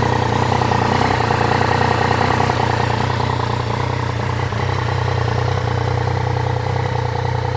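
Yamaha Tracer 900 GT's three-cylinder engine idling steadily, with a strange hollow drone that sounds as if it were inside a PVC pipe. The owner places the drone around the air filter after the 20,000 km service and says the engine itself runs normally.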